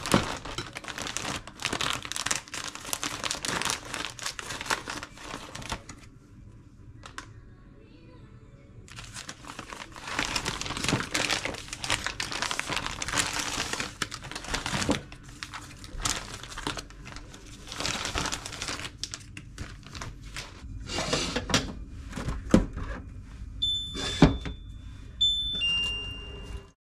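Clear plastic bags and food packets crinkling and rustling in bursts as they are handled and opened, quieter for a few seconds about a quarter of the way through. Near the end come a few short electronic beeps.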